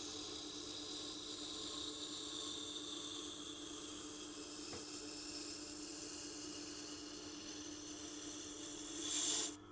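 Tormek wet grinding wheel, dressed to a coarse 80 grit, grinding a lawnmower blade to raise a burr: a steady hiss of steel on the wet stone over the machine's low hum. Near the end the hiss briefly grows louder, then stops suddenly as the blade comes off the stone.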